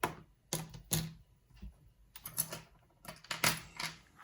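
Small metal parts of a gutted padlock being handled: a few sharp clicks in the first second, then two longer spells of scratchy clicking and scraping.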